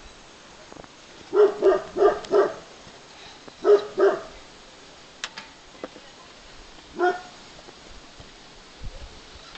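Short barking calls from an animal: four quick barks, a pause, two more, then a single bark later on, with a sharp click between them.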